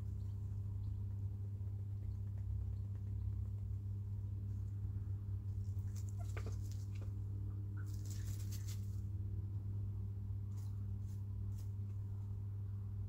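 Chickens pecking and scratching about in a coop: scattered light taps and clicks, with a longer rustle of scratching or feathers about eight seconds in. A steady low electrical hum runs underneath.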